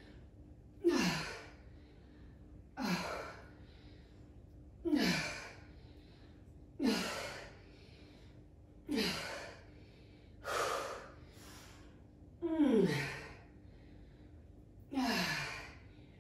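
A woman's forceful exhalations from exertion, eight in all, about one every two seconds, one with each lunge. Each is a short voiced 'hah' that falls in pitch and trails off into breath: the panting of someone near exhaustion in a long set of weighted lateral lunges.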